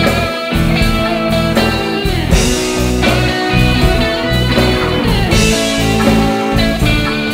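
Background music: a rock or blues track led by guitar over a steady bass pulse.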